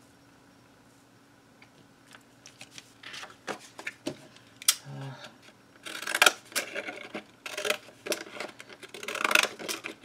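Sheets of cardstock being handled and lifted, with crisp paper rustles and sharp taps that start a couple of seconds in and grow louder and busier in the second half.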